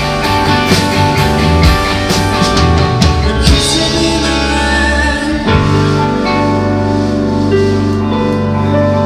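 Indie rock band playing live: electric guitar, bass guitar and drum kit, with steady drum hits for the first few seconds. About five and a half seconds in, the drums drop back and the band lets a long chord ring out.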